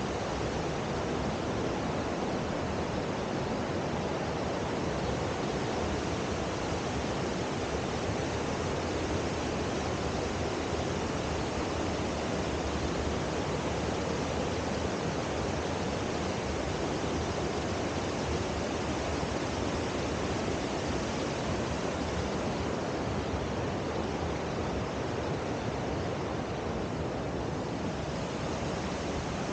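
Fast mountain river rushing over a rocky bed, a steady, unbroken noise of white water.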